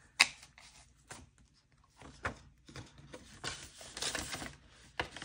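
Paper being handled: a dollar bill and cash envelope rustling and sliding, with a sharp click just after the start and another near the end.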